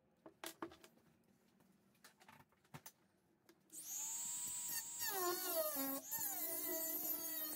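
A few light handling clicks, then about three and a half seconds in a Dremel 3000 rotary tool switches on with a high whine. From about five seconds its cutoff disc cuts into the metal casing of an old car filter, giving a wavering grinding whine whose pitch shifts with the load.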